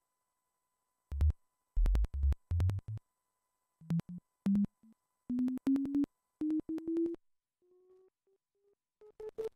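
Simple software synthesizer driven by webcam motion tracking: short, clicky tone blips begin about a second in and step upward in pitch from a low hum to a mid-range tone. Pitch and loudness follow the tracked hand movement.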